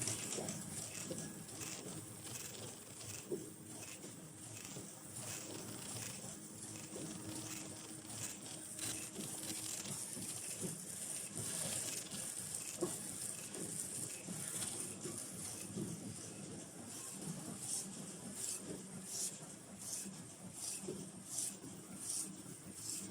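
YX-FM80 automatic face-mask production line with its bag packing machine running: a steady machine hum with repeated clicking and ticking from its mechanisms.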